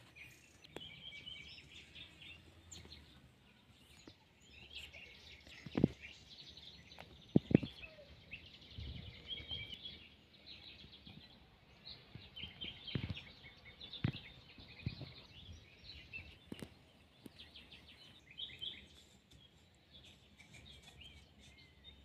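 Small birds chirping and twittering throughout, with a handful of sharp knocks and taps mixed in. The loudest knock is a single one about six seconds in, followed by a close pair about a second and a half later.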